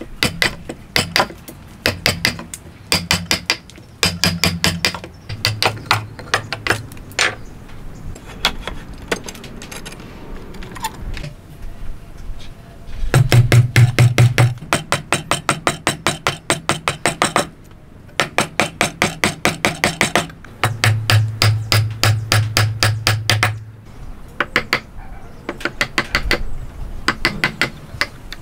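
A steel wood chisel struck with a hammer in fast runs of blows, several a second, with short pauses between runs, chopping waste out of a notch in a timber beam.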